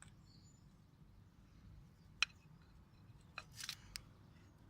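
Quiet handling noises: a single sharp click about two seconds in, then a brief cluster of scraping and rustling about a second later, over a faint steady outdoor background.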